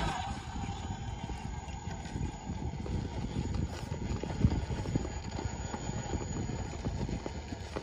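RC rock crawler clambering over rock: tires and chassis knocking and clattering on stone in an irregular, clip-clop-like patter.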